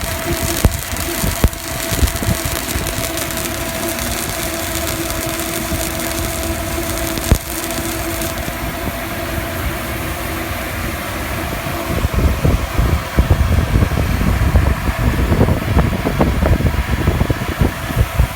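Welding machine humming steadily under the crackle of self-shielded flux-cored wire arc welding. The hum stops about eight seconds in, and an uneven low rumble takes over from about twelve seconds.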